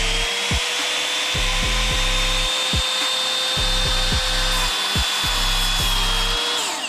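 Electric miter saw cutting a 1x4 wooden trim board at an angle. The motor whine holds steady through the cut and winds down with a falling pitch near the end as the trigger is released.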